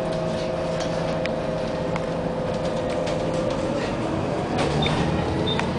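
Bus engine and drivetrain heard from inside the moving bus: a steady drone with light rattles and clicks. Its note sags slightly, then changes about two-thirds in as the sound grows a little louder, and short high beeps come near the end.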